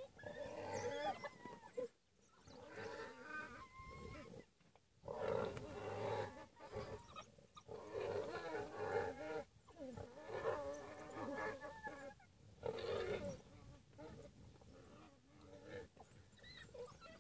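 A warthog squealing and a pack of African wild dogs calling at the kill as the dogs tear at the warthog. The harsh cries come in bouts of a second or two, broken by short pauses.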